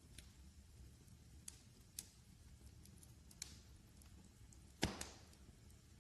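Wood fire crackling faintly: a few sparse, sharp pops over a low steady background, with a louder crackling pop about five seconds in.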